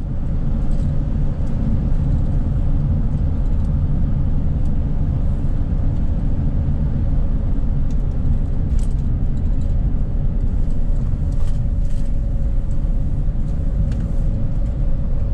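Road and engine noise of a vehicle driving along, heard from inside the cab: a loud, steady low rumble with a faint steady hum over it.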